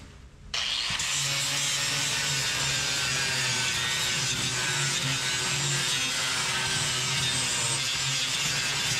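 Electric disc sander running steadily while sanding excess epoxy squeeze-out inside a fibreglass boat hull, a continuous grinding hiss over a low hum. It cuts in abruptly about half a second in.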